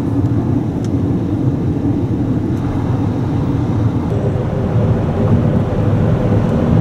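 Steady rumble of a car's engine and tyre noise heard from inside the cabin while driving. About four seconds in the sound shifts and a faint steady hum comes in, as the car runs through a road tunnel.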